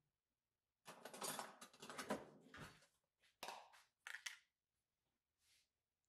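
Kitchen utensils and dishware being handled: clattering for about two seconds, then a few short knocks and clicks.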